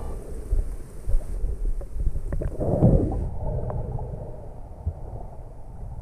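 Muffled underwater water noise: a low rumble with scattered sharp clicks, and a louder surge of water sound about three seconds in.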